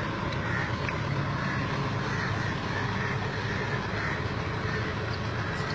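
Steady low background rumble and hiss with no distinct sound events.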